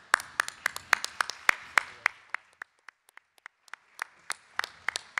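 A few people clapping by hand, sharp separate claps rather than a full wash of applause. The clapping thins out about halfway through, then picks up again.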